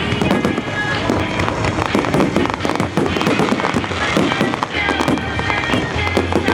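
Fireworks bursting and crackling in quick, overlapping succession, with music playing underneath.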